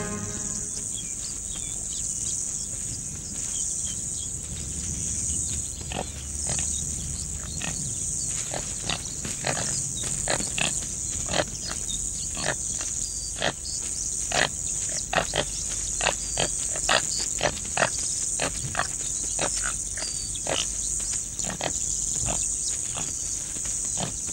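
Topi antelopes snorting and grunting in short, irregular bursts, denser from about six seconds in, over a steady high insect drone.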